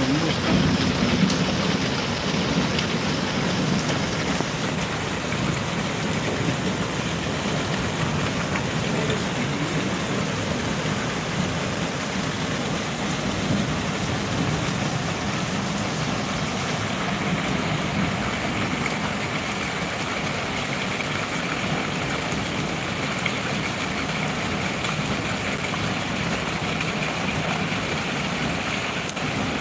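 Heavy rain falling in a steady downpour.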